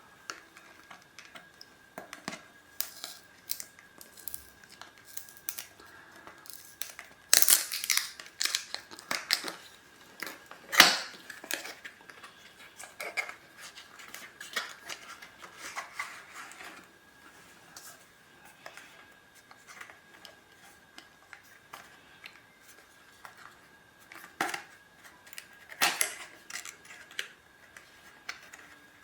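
Hands opening a product box and its packaging: scattered clicks and rustles of cardboard and plastic, with a few louder tearing or scraping bursts.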